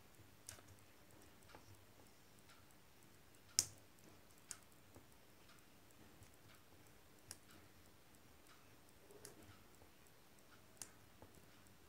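Faint, irregular taps and clicks of a black oil pastel stick touching down on a paper drawing sheet as small strokes are drawn, with one louder tap about three and a half seconds in.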